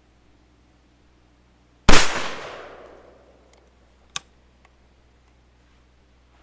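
A single shot from a New England Firearms Survivor single-shot break-open .410 shotgun, firing a 3-inch shell about two seconds in; the report dies away over about a second. A short sharp click follows about two seconds later.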